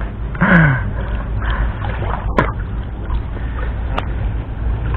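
Water sloshing around a person wading waist-deep in a pond, over a steady low rumble, with two sharp clicks, the first about halfway through and the second near the end.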